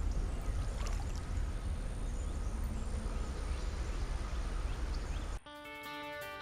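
Wind rumbling on the microphone over outdoor water-side noise, with a few faint ticks; about a second before the end it cuts abruptly to background music with held guitar notes.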